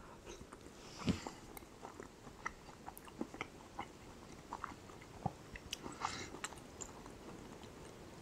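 Close-up mouth sounds of a man chewing a mouthful of rehydrated freeze-dried beef and pasta: a scatter of small, soft wet clicks and smacks, one a little louder about a second in. The meat chews soft, without any crunch.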